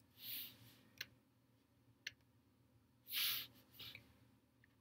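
Faint, mostly quiet room sound with two single sharp clicks of a computer mouse about a second apart, and a few soft, short puffs of hiss, the loudest about three seconds in.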